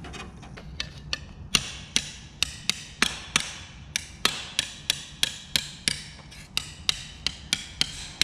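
A hammer striking a sheet-steel patch panel in steady, ringing blows, about two to three a second, forming a bend and lip in the panel for a rust repair. The first blows are light, and they grow louder and regular about a second and a half in.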